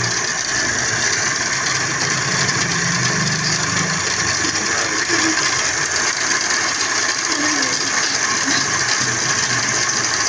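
A metalworking machine running steadily on a cylinder head, a continuous dense mechanical rattling.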